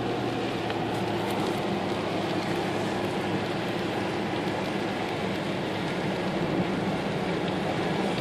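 Steady rain falling, an even hiss with a low steady hum underneath.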